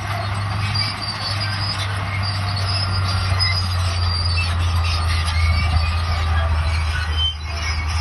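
Bulldozer working: its diesel engine runs steadily while the steel crawler tracks squeal and grind.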